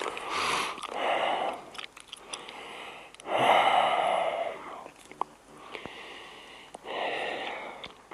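A person breathing hard close to the microphone: about five loud breaths, each under two seconds, with a couple of seconds between them and faint clicks in the gaps.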